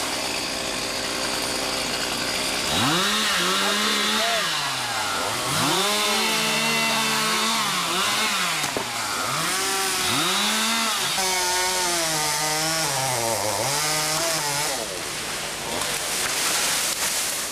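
Stihl MS200T top-handle two-stroke chainsaw cutting hickory. It revs up and drops under load four times in short strokes, then is held at high revs through a longer cut of a few seconds before easing off near the end.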